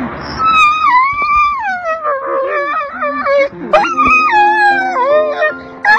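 A dog howling and whining in long, wavering cries that glide up and down: the greeting of a dog reunited with its owner after a long separation. Background music comes in about halfway through.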